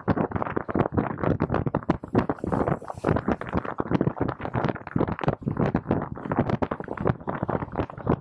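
Mountain bike rattling and clattering over rough ground: a rapid, irregular run of knocks, with some wind on the microphone.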